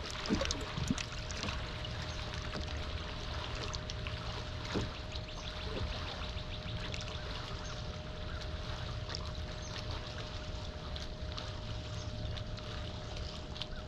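Water lapping and trickling against a fibreglass bass boat's hull, with small splashes and ticks, over a steady low hum.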